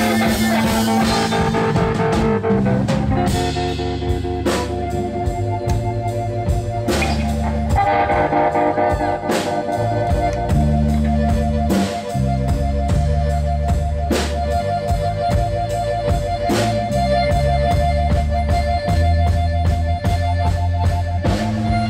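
Live blues band: a harmonica played through a hand-held microphone leads over electric bass, drums and electric guitar. The harmonica holds long notes through the second half over a moving bass line and a steady beat.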